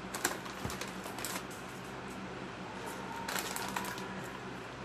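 Chip bags crinkling as hands dig in for Cheetos, in a few short crackling bursts, the longest about three and a half seconds in, over a low steady hum.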